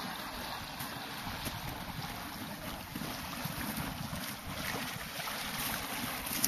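Wind buffeting the microphone in low gusts over the steady rushing hiss of a flowing creek.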